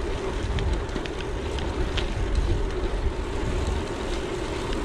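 Wind buffeting the microphone of a bike-mounted action camera while riding a gravel bike along a lane, over the steady hum of tyres rolling on the road and a few light ticks.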